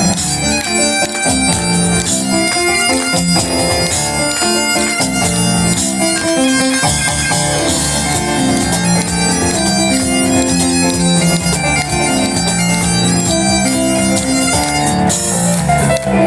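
Bagpipes playing a fast melody over driving piano and cajon in a live band performance, with the percussion keeping a steady rhythm of sharp hits.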